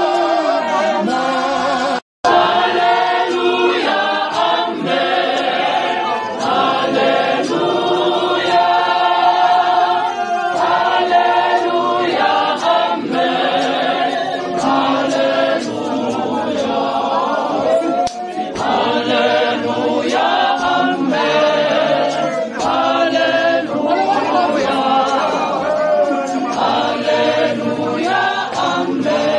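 Church congregation singing together, many voices in a choir-like chorus. The sound breaks off for an instant about two seconds in, then the singing carries on.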